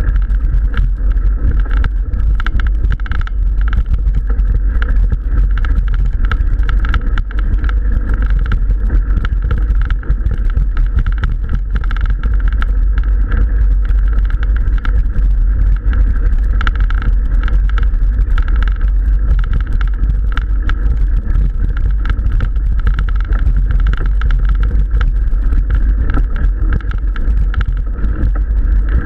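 Mountain bike riding uphill on a dirt and gravel track, heard through a bike- or body-mounted action camera: a steady, heavy rumble with constant small clicks and rattles from the tyres and bike over the gravel.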